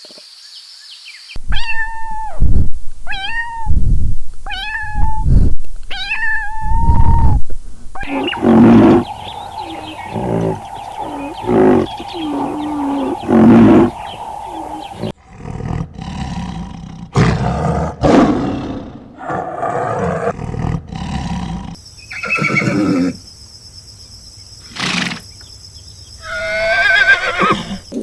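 A run of short animal-call clips: first four pitched calls, evenly spaced, each ending in a falling hook, then lower, rougher calls with knocks and handling noise.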